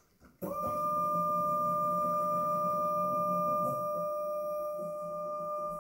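Rotary-tool spindle of a small CNC PCB mill switching on about half a second in, spinning up within a fraction of a second to a steady high whine that holds.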